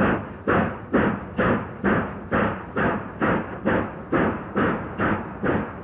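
Steam locomotive exhaust chuffing in a steady rhythm of about two beats a second as it pulls a freight train.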